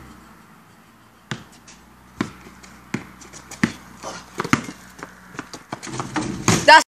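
A basketball dribbled on a concrete driveway: sharp bounces, about one a second at first and then quicker, ending in a loud burst near the end.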